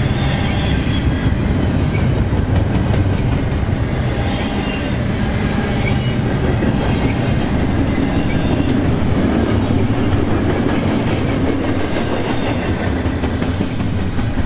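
BNSF double-stack intermodal container train rolling past: a steady, loud rumble of the well cars' wheels on the rails.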